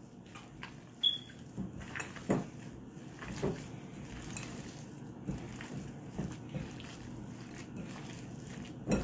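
Gloved hands kneading and squeezing ground beef with breadcrumbs and egg in a glass bowl: irregular soft squelches with occasional light knocks against the bowl.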